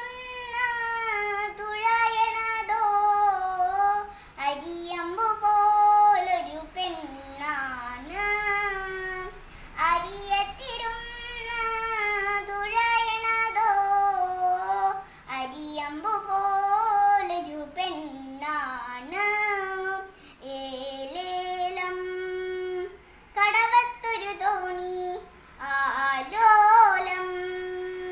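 A young girl singing a Malayalam light song (lalitha ganam) solo and unaccompanied, in phrases with long held notes that bend and waver.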